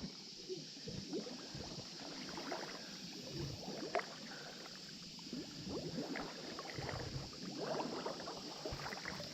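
Creek water sloshing and swishing in small, irregular splashes as someone wades through it, soft and continuous.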